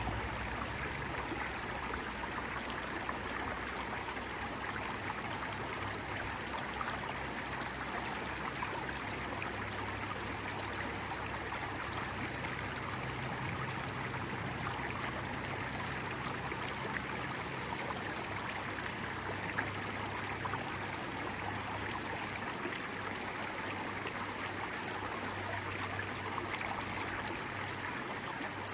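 Running water of a stream, a steady, even rushing flow.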